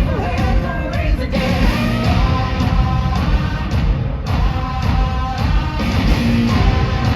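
Loud rock music with a steady, heavy beat and guitar.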